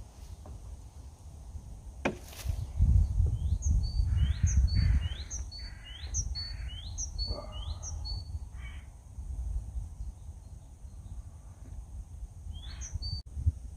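A bird calling about six times in quick succession, roughly two calls a second, then once more near the end, over a low rumble.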